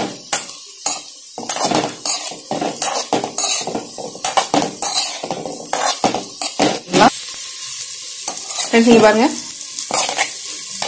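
Prawns sizzling in their own released water in a metal kadai, with a metal spoon repeatedly scraping and knocking against the pan as they are stirred. The stirring stops about seven seconds in, leaving a steady sizzle.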